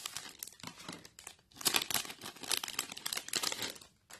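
Clear plastic sleeve crinkling and rustling in the hands as photocards are pulled out of it, in two runs of crackles with a short pause about one and a half seconds in.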